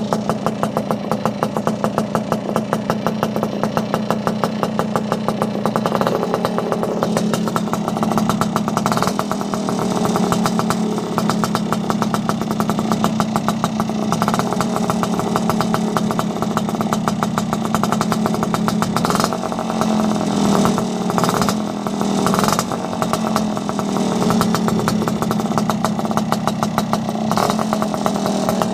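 Vespa 50 Special's two-stroke single-cylinder engine running through a Barone Racing aftermarket exhaust, mostly idling with a fast, even beat, with rises in revs about six seconds in and again around twenty seconds in. The scooter came already tuned, and its owner believes it has a 75 cc cylinder kit.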